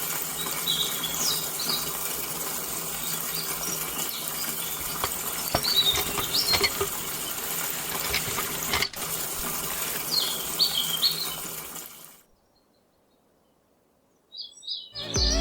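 Steady running water with short high bird chirps over it. It cuts off about twelve seconds in; after a brief silence, music starts near the end.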